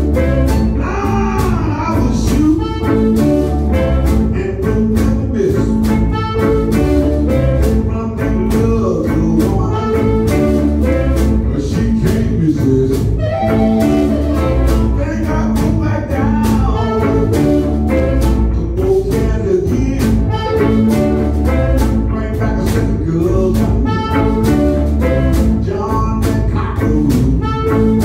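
Live blues jam: electric and acoustic guitars over a cajón and snare drum keeping a steady beat, with a harmonica playing the lead line in bent, wailing notes.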